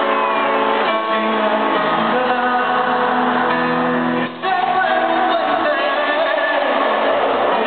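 A live pop ballad: a male singer with piano accompaniment, recorded from the audience in a large arena. The music drops out briefly a little past halfway.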